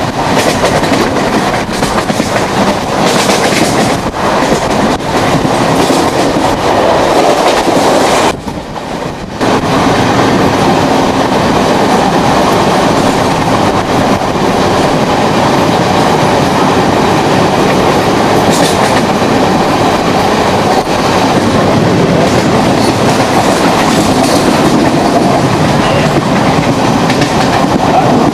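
Konkan Railway passenger train (Mangala Express) running along the track, a loud steady din of wheels and carriages. The noise drops for about a second some eight seconds in, then returns.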